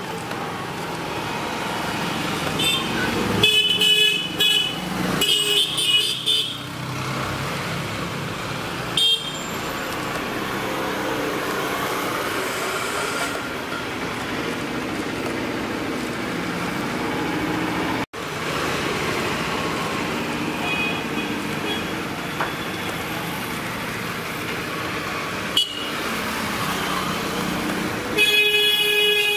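Steady street traffic noise with short car horn honks, several close together a few seconds in, a single one shortly after, and a louder run of honks near the end.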